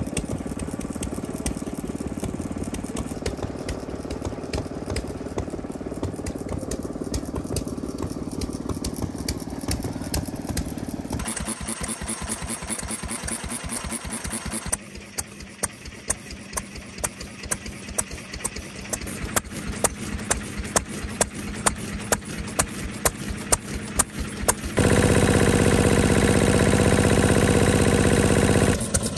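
Old single-cylinder stationary farm engines running, heard in several abrupt cuts. For much of the time it is an even beat of sharp firing knocks. For about four seconds near the end a louder, steadier engine sound takes over.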